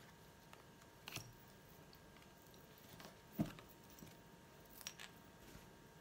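Near silence, broken by a few faint taps and rustles of playing cards and card decks being handled and set down on a cloth-covered table; the loudest is a soft thud about three and a half seconds in.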